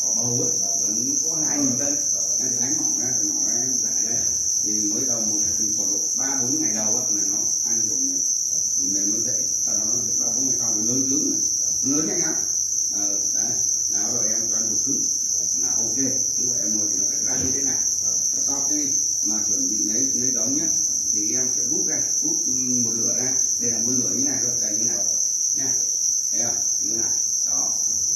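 Dense chorus of farmed black crickets chirping without pause, a continuous high-pitched trill from the rearing bins.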